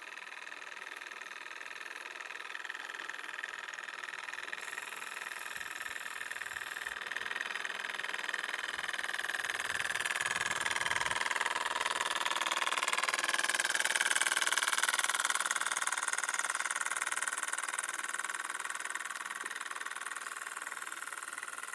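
Small single-acting, single-cylinder Microcosm M55 steam engine of a spirit-fired model steam launch running steadily under way, a high-pitched mechanical whirr. It grows louder as the boat comes close, is loudest about two-thirds of the way through, then eases off a little.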